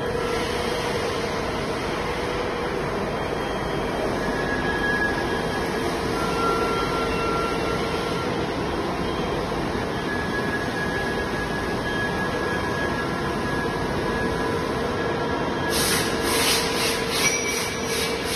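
Heavy machinery running steadily with a low drone and brief high-pitched squeals that come and go. Near the end comes a quick run of sharp hissing ticks, about three a second.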